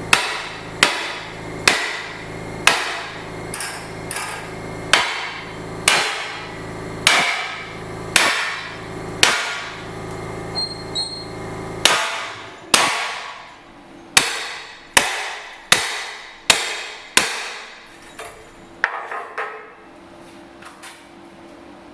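Hammer blows on steel plate, about one a second, each with a metallic ring, with lighter taps near the end. A steady low hum runs under the first half and stops about halfway through.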